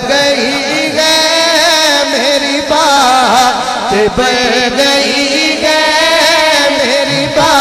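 A man singing a devotional naat into a microphone, drawing out long, wavering, ornamented notes in a melismatic passage with no clear words.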